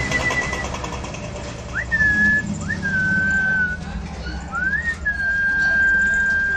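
A person whistling a series of clear, high held notes: one fading just after the start, then three more, each beginning with a quick upward slide, the last held for about two seconds.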